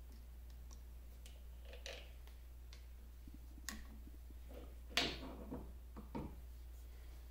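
Light metallic clicks and knocks from the lathe's handwheel and graduated dial as they are worked loose and slid off the feed screw. The loudest knock comes about five seconds in, with a few smaller clinks around it.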